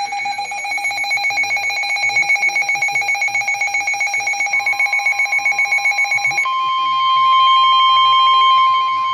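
Midland weather radio's alert alarm beeping in rapid, even pulses. About six and a half seconds in it gives way to a single steady, loud tone near 1 kHz, the NOAA Weather Radio warning alarm tone that announces a severe thunderstorm warning.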